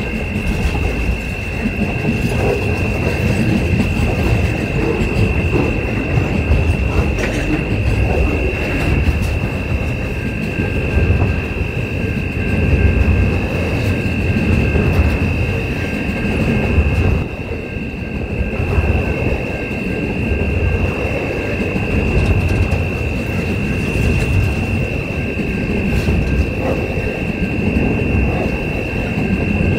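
Freight train of container wagons rolling past close by: a steady, dense rumble of wheels on rail, with a steady high-pitched whine held over it.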